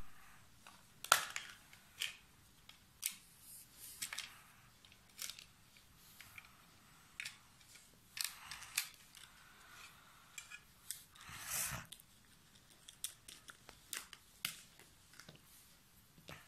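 Hard plastic toy pieces and a plastic case being handled on a carpet: scattered sharp clicks and clatters with short scrapes and rustles, and a longer scrape about eleven and a half seconds in.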